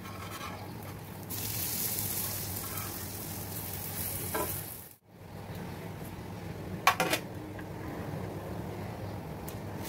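Bread slices sizzling on a hot griddle as they are turned over with a knife. The sizzle is strongest in the first half, and just before seven seconds in there are two sharp metallic clinks.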